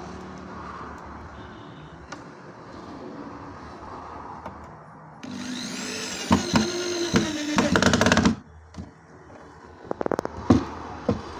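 A power tool's motor runs loudly for about three seconds midway, its pitch bending up and down, between quieter workshop noise. A quick rattle of sharp clicks follows near the end.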